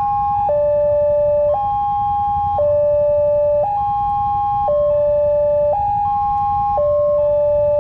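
Two railway level-crossing warning alarms sounding at once, each an electronic two-tone hi-lo siren that switches pitch about once a second, the two out of step with each other, over a low background rumble.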